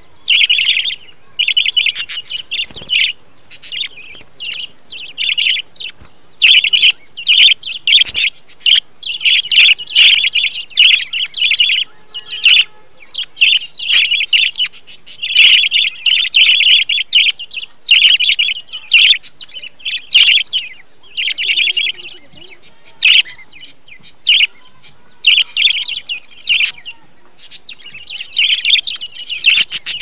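A group of budgerigars chirping and chattering: short, bright calls in quick irregular runs with brief pauses between.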